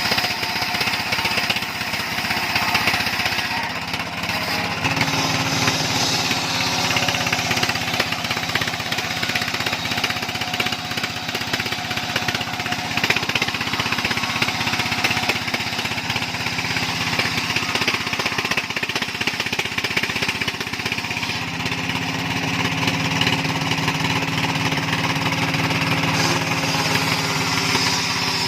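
Sawmill machinery running steadily, an engine-driven saw with a continuous hum and rapid pulsing; its tone shifts slightly about five seconds in and again near twenty-one seconds.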